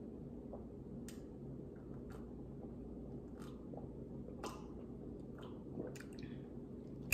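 A person gulping a drink from a plastic tumbler: faint swallowing clicks about once a second.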